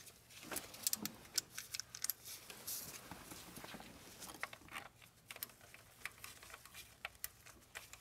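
Faint, irregular light metallic clicks and taps with some rustling, as bolts are fitted by gloved hand to a new timing chain guide on an engine with the timing cover off.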